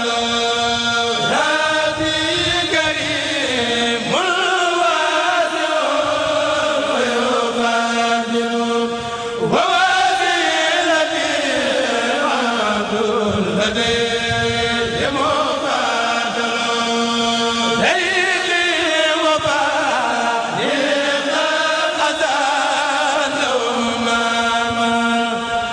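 Male voices of a Mouride kurel chanting an Arabic khassida into a microphone. A lead voice sings long, gliding, melismatic phrases that break every few seconds, over a steady held note.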